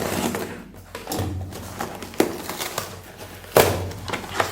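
Rustling and scraping of product packaging being handled and opened, with a few sharp clicks and one louder knock about three and a half seconds in.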